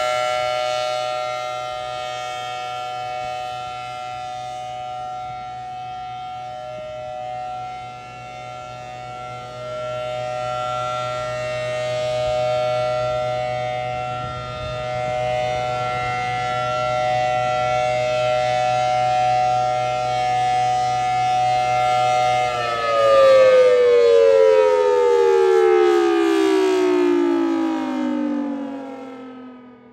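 Federal Signal Thunderbolt 1000T outdoor warning siren sounding its Alert signal: a loud steady tone that swells and fades slowly as the rotating horn sweeps around. About two-thirds of the way in it shuts off, and the pitch falls steadily as it winds down, dying away at the end.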